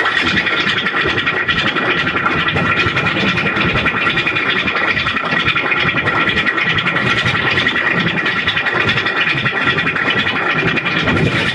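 Digitally distorted, effects-processed logo audio: a dense, rough, fast-fluttering noise over a few steady high tones, with no clear melody.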